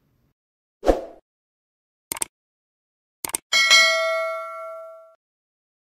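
Subscribe-button animation sound effects: a short pop about a second in, quick mouse clicks around two and three seconds in, then a notification bell ding that rings out for about a second and a half.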